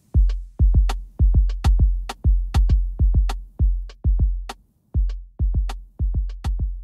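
Lofi hip-hop drum-machine beat: deep kick drums and sharp snare and hi-hat hits in a steady groove, with little else over them. The beat stops right at the end.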